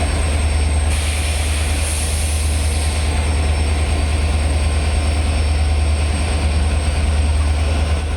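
WDP4D diesel locomotive's engine humming steadily with a deep drone.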